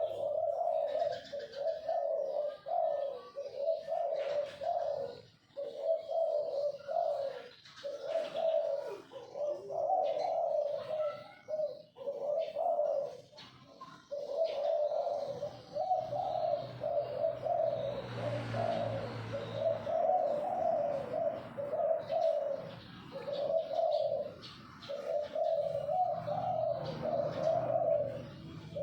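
Zebra dove (perkutut) cooing over and over, a steady run of short rolling coo phrases with brief pauses between them. Fainter chirps sound in the background, and a stretch of hiss with a low hum comes in a little past the middle.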